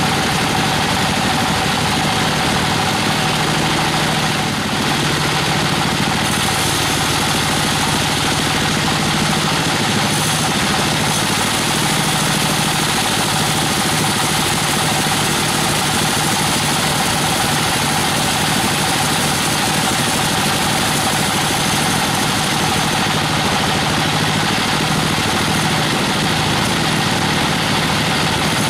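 Sawmill band saw running steadily as it cuts lengthwise through a weru (Albizia procera) log fed on its carriage.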